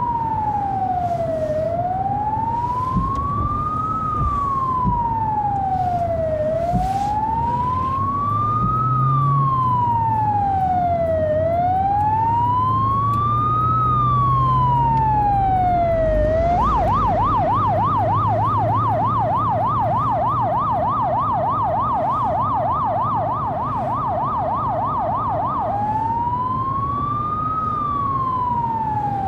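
Police car siren wailing, its pitch rising and falling slowly about every five seconds. Past the middle it switches to a rapid yelp for about nine seconds, then goes back to the slow wail near the end. A low engine and road rumble runs underneath.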